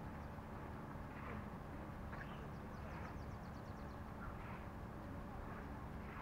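Steady low machine hum on a construction site, with scattered short knocks or scrapes. About two and a half seconds in comes a brief run of rapid high-pitched ticks.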